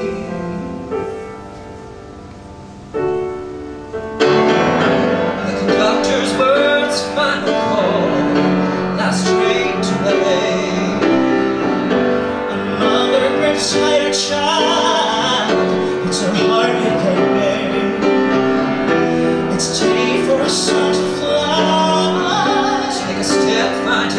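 Grand piano chord dying away quietly for the first four seconds, then the piano comes back in loud with singing voices over it, the voices wavering in pitch.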